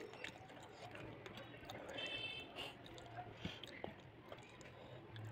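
Faint eating sounds of a meal of rice taken by hand: chewing and small wet mouth clicks, with a brief squeak about two seconds in.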